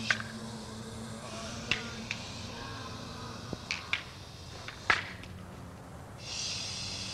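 Room noise with a steady low hum and hiss, broken by a handful of sharp, irregular clicks and taps; the loudest comes a little before the five-second mark.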